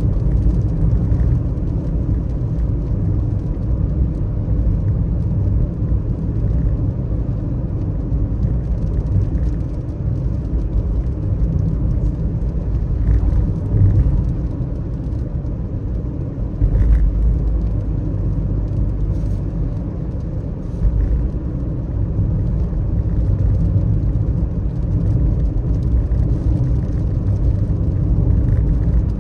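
Car driving on a wet road, a steady low rumble of engine and tyres that swells slightly now and then.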